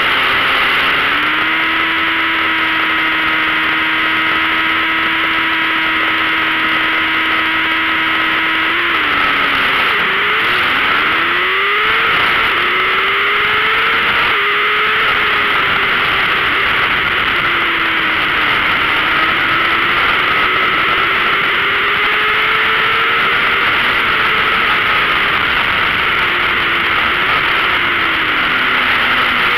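600 cc racing motorcycle engine under heavy wind rush, heard from an onboard camera. The engine holds one steady note for the first nine seconds or so. It then rises and falls in pitch again and again as the bike accelerates and shifts through the gears.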